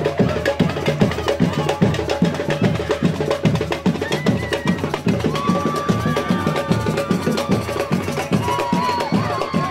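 Dance music driven by fast, busy drumming, with a few long held high notes over it in the second half.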